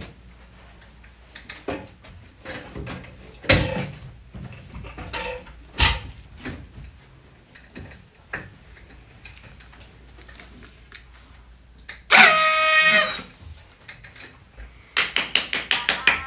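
Scattered knocks and handling clicks, then about twelve seconds in a loud, steady horn blast lasting about a second. Near the end, music with a quick strummed rhythm starts.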